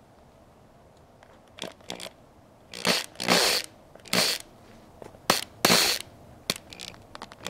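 Power drill turning a screw extractor in reverse in a string of about eight short bursts, starting about a second and a half in, to back out a sheared oil screen cover bolt from a Husqvarna TE450 engine case.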